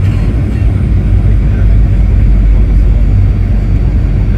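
Cabin noise inside a Boeing 737-800 on final approach with the landing gear down: a steady, loud, low rumble of airflow and the CFM56-7B engines.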